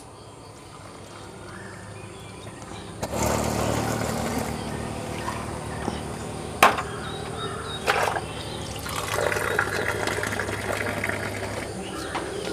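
Hot tea poured from a height out of a brass vessel into a glass: a steady splashing stream of liquid that starts about three seconds in, with two sharp knocks of the vessels partway through.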